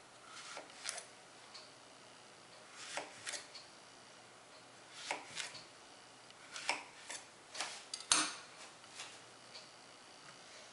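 Utility knife cutting through a zucchini and knocking on a wooden cutting board: short sharp knocks every second or two, often in quick pairs, the loudest about eight seconds in.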